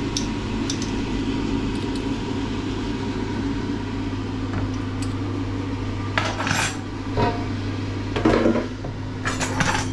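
Small stainless steel dish lifted out of an air fryer basket with a dish gripper and set down on a wooden chopping board: a few short metal clinks and clatters in the second half, the loudest a little past eight seconds in. Underneath runs the steady hum of the Ninja air fryer's cooling fan.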